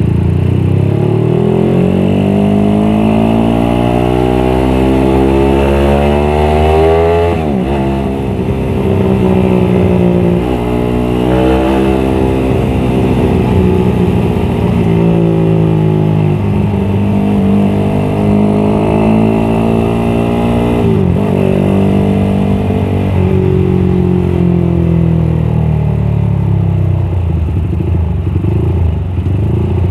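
Suzuki Satria FU single-cylinder four-stroke engine, bored up to 200cc, pulling through the gears as the bike accelerates. The revs climb for several seconds and drop sharply at each of about three upshifts, then fall away gradually near the end as the throttle is eased off.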